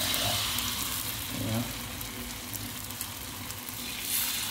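Hot oil in an aluminium wok frying battered banana pieces with a steady fizzing sizzle. It flares up as a fresh piece of batter-coated banana goes into the oil at the start and again about four seconds in.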